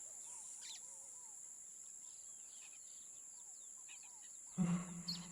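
Faint outdoor ambience with small birds chirping and tweeting, the chirps repeating at a low level. Near the end a louder, held, voice-like sound starts abruptly and keeps a steady pitch.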